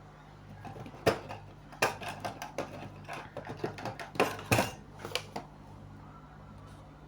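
Soldering iron and metal tools clicking and tapping on an LED light's metal heatsink board while solder is worked onto it: about a dozen sharp metallic clicks over about four seconds, then they stop.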